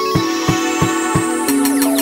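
Electronic music: held synth chords over a steady kick drum at about three beats a second, the chord shifting lower about one and a half seconds in.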